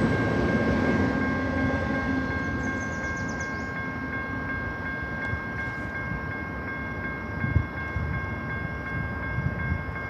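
Freight train running on and fading into the distance, its rumble dying away steadily under a few steady high tones that hold throughout. A couple of brief low thumps come in the second half.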